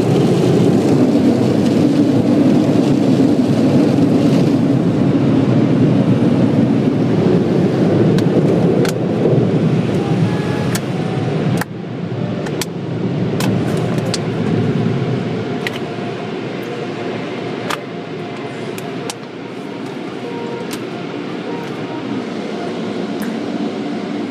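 Steady rushing noise of car wash tunnel machinery, heard from inside a car. It is loudest for the first ten seconds or so, drops suddenly a little before the middle and stays lower, with scattered sharp ticks in between.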